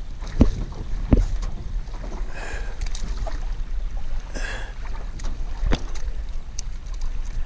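Wind buffeting the microphone as a steady low rumble, with a few sharp knocks and two short rustling sounds.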